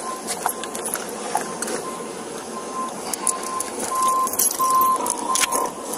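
Steady background noise with a faint high beep repeating in short even pulses, plainer in the second half, and a few scattered clicks.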